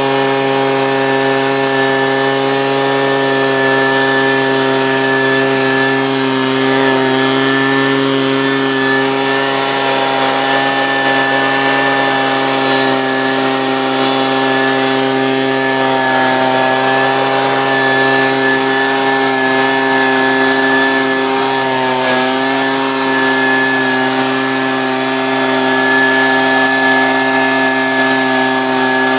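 Husqvarna 125B handheld two-stroke leaf blower running steadily at high throttle, clearing debris from gutters. Its pitch sags briefly once, about two-thirds of the way through.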